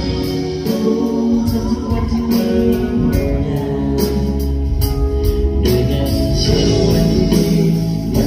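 Pop song performed live: a voice singing over band accompaniment with a steady drum beat.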